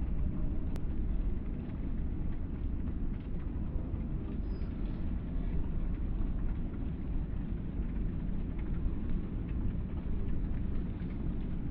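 Low, steady rumble of city street ambience, mostly distant traffic.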